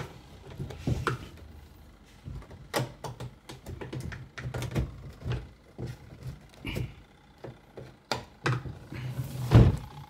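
Plastic clicks and knocks as a long screwdriver pries the plastic top panel of a twin-tub washing machine off its snap clips, with a heavier thump near the end.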